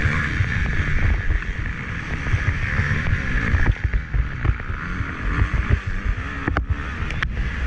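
Motocross bike engine running hard under race load, its revs climbing and falling, heard through a GoPro with heavy wind buffeting on the microphone. Two sharp knocks about half a second apart near the end.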